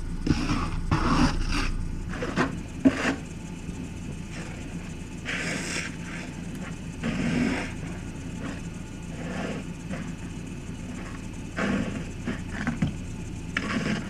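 Long-handled snow brush sweeping and scraping snow off a pickup truck's roof and window, in short swishing strokes that come in bursts every second or two, over a steady low hum.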